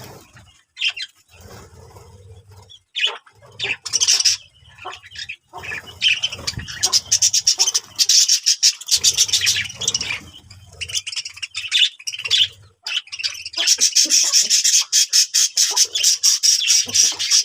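Birds chattering and squawking in quick, short calls, sparse at first and becoming a dense, continuous chatter in the last few seconds.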